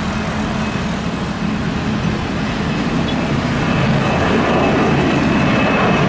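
Twin-engine jet airliner's turbofans at takeoff power as it lifts off and climbs out: a steady rushing noise over a low hum that grows louder, with a faint high whine joining about halfway through.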